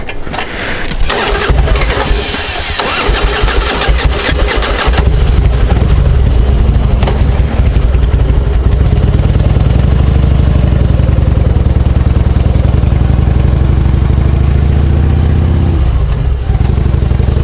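Harley-Davidson Heritage Softail Classic's air-cooled V-twin being cranked on the electric starter for several seconds, catching about five seconds in and then idling steadily with a deep, uneven beat.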